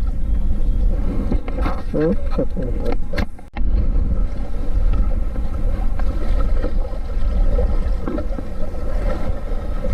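Steady low rumble of wind on the microphone and open-sea noise aboard a small outrigger fishing boat, with a short voice about two seconds in and a brief dropout a little after three seconds.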